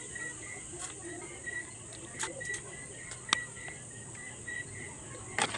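Spoon and fork clicking against a plate while eating, the sharpest click about three seconds in and a few more near the end. Behind them a cricket chirps steadily, about two to three chirps a second.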